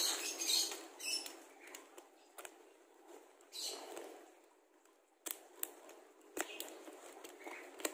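Utility knife blade cutting along the top seam of a small cardboard box: a short scratchy cut a few seconds in, then several sharp clicks and taps as the box is handled.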